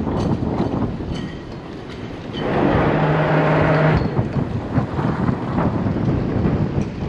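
Wind buffeting the microphone, with crackles and clicks. About two and a half seconds in, a louder rush with a steady low hum comes in and cuts off about a second and a half later.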